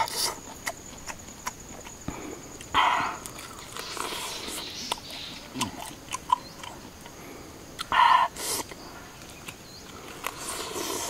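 A man eating roast chicken: chewing, lip smacking and tearing bites, a scatter of short wet clicks with two louder rough bursts, about three seconds in and again about eight seconds in.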